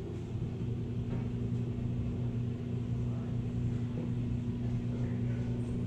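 Steady low machine hum over a low rumble, holding two even tones with no change.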